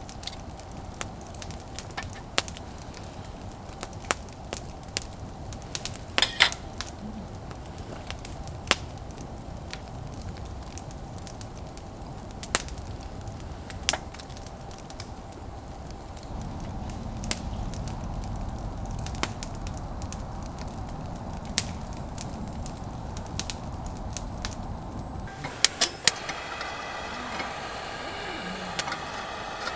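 Wood campfire burning, with scattered sharp pops and crackles over a low rumble. About 25 seconds in the rumble drops away and a steadier higher hiss takes over.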